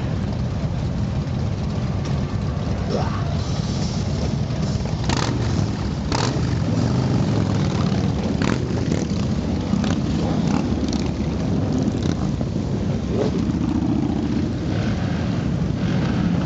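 A steady procession of motorcycles riding past, their engines running in a continuous, unbroken stream, with a few short sharp sounds standing out above them.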